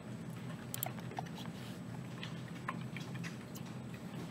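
Scattered faint clicks from a computer mouse being used to navigate menus, over a low steady hum.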